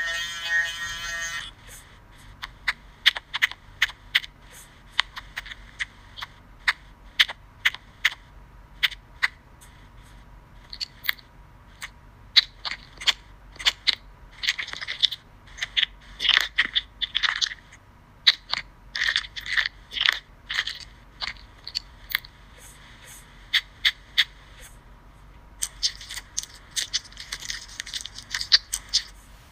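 An electric nail drill's buzzing whine stops about a second and a half in. A long run of short, irregular crunching and scraping sound effects follows, the kind laid over ingrown toenail cleaning animations, thicker and hissier near the end.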